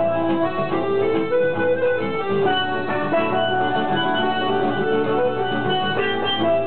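Live instrumental music from a small acoustic group: a button accordion and an acoustic guitar with a third melody instrument, playing a continuous tune without singing.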